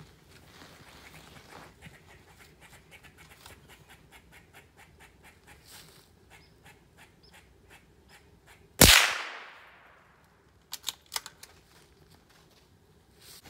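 A single gunshot fired about nine seconds in, its report trailing off over about a second, followed about two seconds later by a few sharp clicks. Before the shot, faint ticking and rustling.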